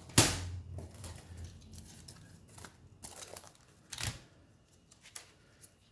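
Laptop keyboard and parts being handled: a sharp plastic clack about a quarter second in, then light clicks and rustling, and another clack about four seconds in.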